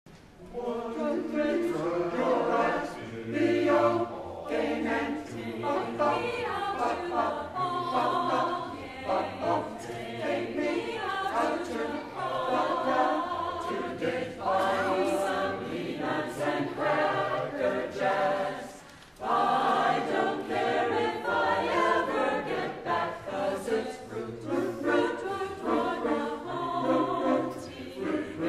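Music with a choir singing over a low bass line, dipping briefly about two-thirds of the way through before coming back in full.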